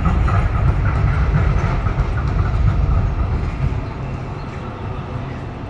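Melbourne tram passing along the street, a loud low rumble of wheels on rails that is strongest for the first four seconds and then fades.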